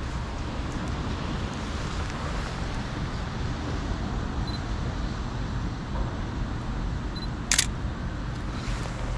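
A Sony A7C mirrorless camera's shutter clicks once near the end, over a steady low rumble of street traffic. Two short, faint high beeps come earlier, the second just before the click.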